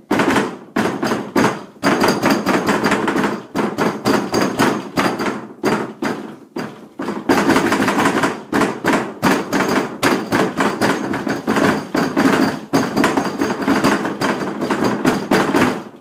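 Rapid, continuous pounding on a door, several hard blows a second. The blows let up briefly about six seconds in, come back harder and stop abruptly at the end.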